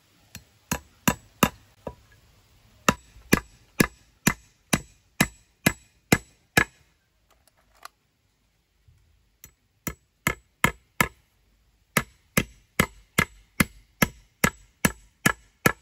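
A hand tool striking wood in steady, evenly spaced blows, about two a second, in runs broken by short pauses and one longer pause of nearly three seconds midway.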